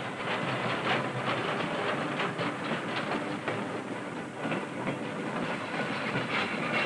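Train running along the rails: a continuous rattle of the cars, with frequent irregular clanks and knocks.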